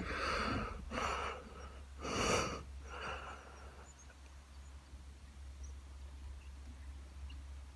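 Four short breaths close to the microphone, about a second apart, then only a faint low rumble.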